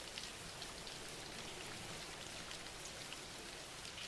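Steady soft rain falling, with a fine patter of individual drops.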